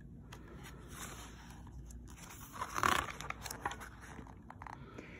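Paper rustling and light handling as a book's page is turned, with one louder swish about three seconds in.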